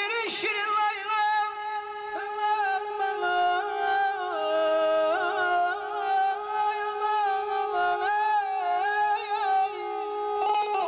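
Live Azerbaijani music: a man sings a wavering, ornamented melody without clear words into a microphone, with an electric guitar and a steady held note underneath.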